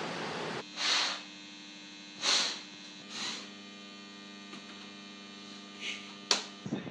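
Three short scraping rustles as the plastic side panel of an Xbox 360 console is handled, over a steady electrical mains hum, with a couple of light clicks near the end.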